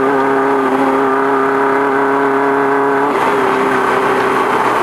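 Engine of a Volkswagen Beetle-based desert race car running at a steady high pitch under way, heard from on board. About three seconds in the steady note breaks up and turns rougher.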